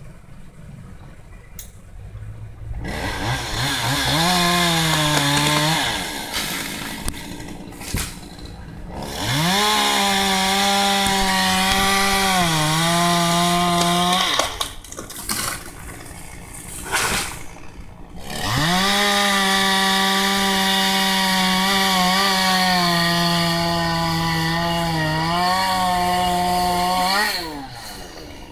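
Gasoline chainsaw cutting pine, revved up to full throttle three times and held there for a few seconds each time. Between cuts it drops back to a low idle. The engine pitch sags briefly now and then as the chain bites into the wood.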